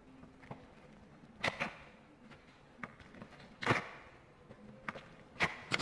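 Fingers pressing and poking into a thick block of glittery slime, making a scattering of sharp pops and clicks. The loudest comes a little before four seconds in.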